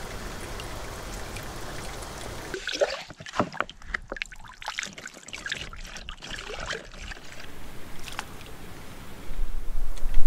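Meltwater trickling and dripping into a small pool, then water gurgling and splashing as it is poured from a jar into a soft plastic water bag. Near the end, a loud low rumble of wind on the microphone.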